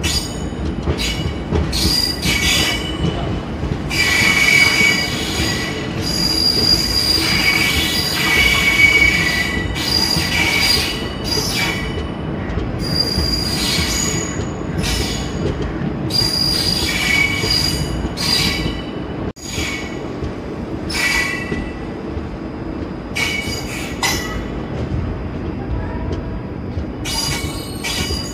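Passenger train running on the rails with a steady rumble, its ICF coach wheels squealing in repeated high-pitched bursts that come and go every second or two.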